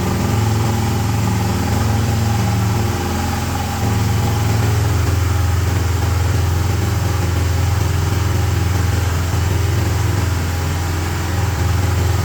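Livestock feed and compost mixer machine running, its drive motor giving a steady low drone. It eases briefly about three seconds in.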